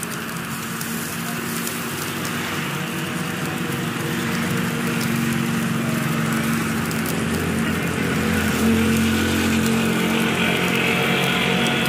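A motor running steadily with a low hum, growing louder through the first half and then holding; a hiss joins near the end.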